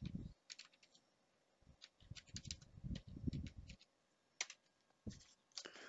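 Faint typing on a computer keyboard: a quick run of keystrokes in the middle, then a few single key clicks near the end.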